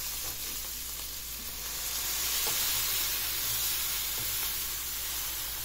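Pieces of pork with onions and peppers sizzling steadily as they brown in a pan, with a faint tap about two and a half seconds in.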